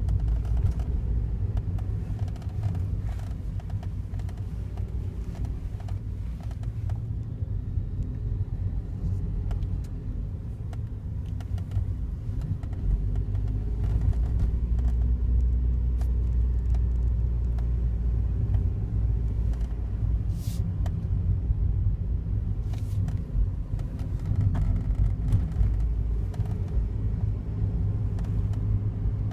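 Daihatsu Wake running with a steady low rumble, with many faint clicks and ticks scattered over it. The clicks are the abnormal noise the car developed a month after delivery, which the owner says is worst when it is cold out; its cause is unknown.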